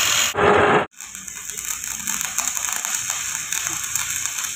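A short burst of an angle grinder cutting steel, then, about a second in, the steady dense crackle of an electric arc welder laying a bead.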